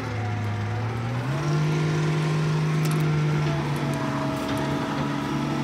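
A motor vehicle's engine running steadily. Its pitch steps up about a second in and then holds level.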